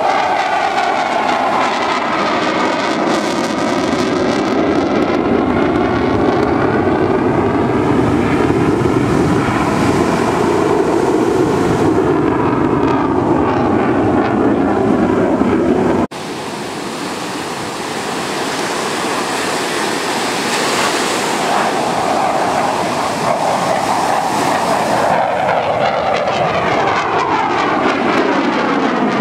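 F/A-18 fighter jet's twin engines, a loud continuous jet roar as the aircraft manoeuvres overhead, with a sweeping, phasing hiss as its distance and angle change. The sound breaks off abruptly about halfway through, then comes back and builds up again.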